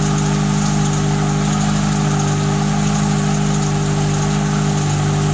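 Fiat Tempra 2.0 16V four-cylinder engine idling steadily, with a very loud exhaust. It carries an engine noise that the owner cannot yet place and thinks could be a rod bearing, a piston or simply a bearing in some accessory.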